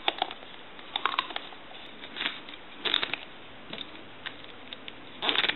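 Hands handling a telephone handset while its screw-on transmitter cap is turned back into place: scattered small clicks and short scraping rubs in a few brief clusters, with a longer rub near the end.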